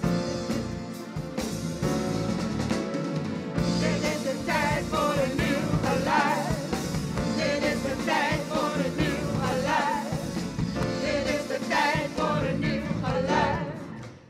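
Upbeat band music from a stage musical number, joined by singing voices about four seconds in; the sound drops away near the end.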